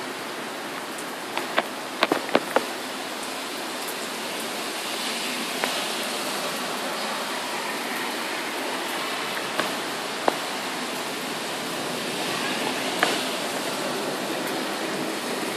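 Heavy thunderstorm rain falling steadily, a continuous hiss. Sharp taps come through it: a quick cluster about two seconds in, then a few scattered ones.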